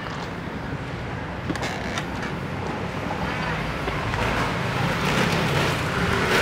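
Steady urban road traffic rumble that grows louder over the last few seconds.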